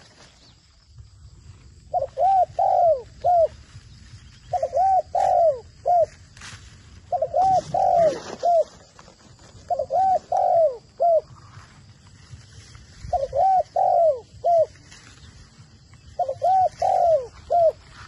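Decoy zebra dove in a rattan cage cooing: six phrases of four or five short, staccato arched coos, one phrase every two to three seconds.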